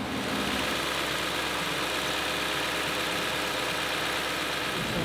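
An engine running steadily under an even, steady hiss.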